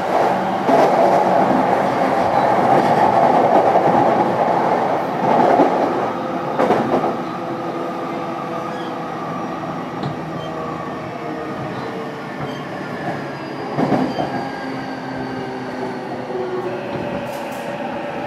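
Running sound inside a JR East E233-1000 series electric motor car: steady traction motor tones over rail rumble and wheel clatter, louder for the first several seconds and then quieter, with a few short knocks.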